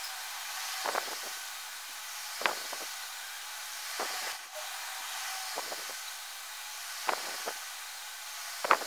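Mechanical pencil scratching small scale marks on paper in short strokes, some in quick pairs, about every second and a half, over a steady hiss.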